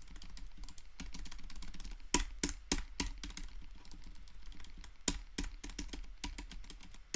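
Membrane keyboard being typed on in a quick run of key clicks, with several louder key strikes among them; its stabilizers are lubricated, which gives a quieter and smoother feel.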